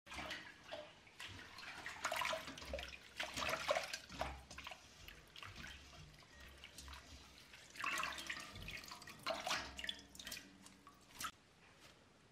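Water splashing and dripping as hands swish and squeeze celery leaves in a stainless-steel bowl of water, in irregular bursts that die down near the end.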